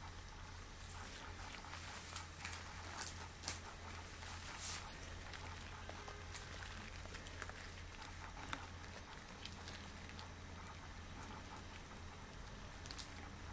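Latex gloves rubbing and crinkling on the hands, with irregular small crackles and a few sharper snaps about three to five seconds in, over a faint steady low hum.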